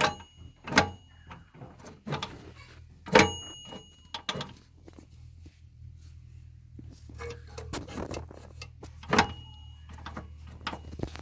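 Metal parts and tools clinking and knocking during tractor hydraulic pump repair work: a string of sharp strikes, several with a brief metallic ring, the loudest about three seconds in. A steady low hum runs underneath.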